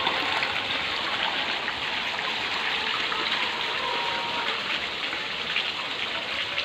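A crowd of catfish splashing and churning the pond surface as they feed: a steady patter of many small splashes.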